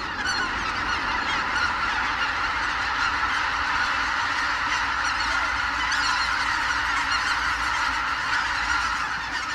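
A large flock of geese honking together: a dense, steady chorus of many overlapping calls.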